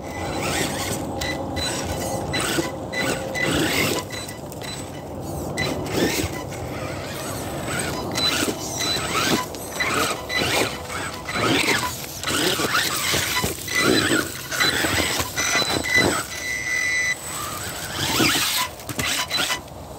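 Electric RC rock bouncer driven in short bursts of throttle: its motor and drivetrain whine, while the tyres and chassis clatter and knock repeatedly over rocks and dirt.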